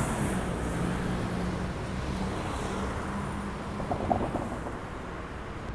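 Street traffic with a city bus's engine running as it drives past, a low steady hum that fades after about three and a half seconds. A short, louder noise comes about four seconds in.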